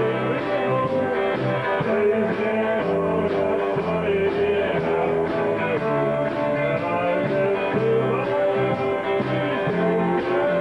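Live rock band playing amplified electric guitars, with a man singing and a steady beat.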